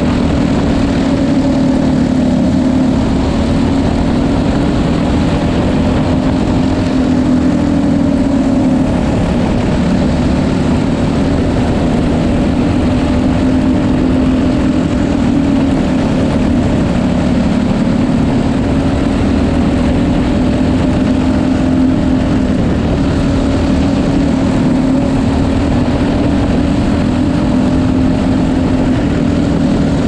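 Racing kart's small engine running hard, heard on board the kart, its pitch dipping and rising gently every several seconds.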